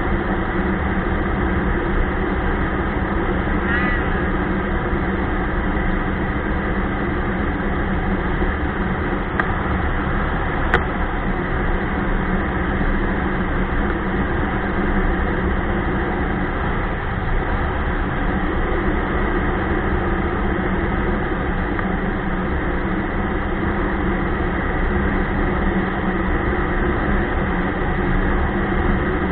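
Ski-Doo Expedition snowmobile running steadily under way, a constant engine drone. A brief wavering squeak comes about four seconds in, and two short clicks about ten seconds in.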